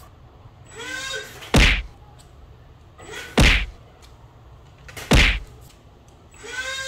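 A small foam RC plane crashing onto the floor, heard as four sharp thuds about every 1.8 seconds, each coming in with a quick swelling rush. Before the first and the last thud, the plane's tiny propeller motors give a brief whine that rises and falls. This is a failed first flight, blamed on the pusher propeller layout.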